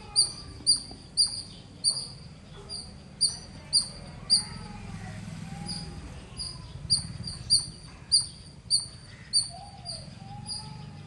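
A squirrel giving loud, high-pitched chirping calls, short sharp notes repeated about twice a second, with a pause of about two seconds midway before the calling resumes.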